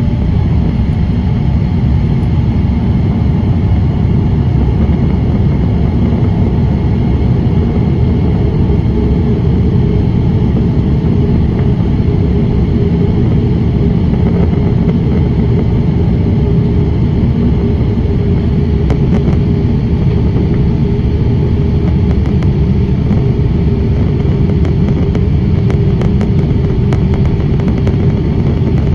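Cabin noise of a Boeing 787-8 airliner in flight, heard from a window seat over the wing: a steady, loud rumble of engine and airflow.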